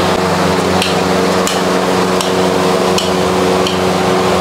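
Metal spatula clicking against a hot iron dosa griddle as dosas are flipped and lifted, a short sharp tap about every 0.7 seconds, over a steady kitchen hum.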